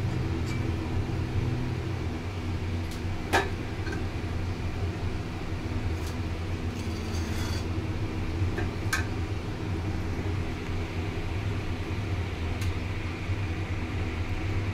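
A few sharp clinks of a metal spoon against an iron kadai, the loudest about three seconds in, over a steady low hum.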